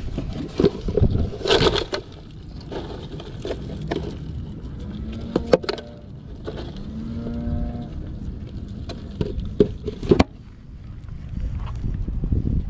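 Plastic bait cooler being opened and handled, with sharp clicks and knocks of the lid and hands rummaging through live mud crabs. In the middle come two low, drawn-out tones of about a second each.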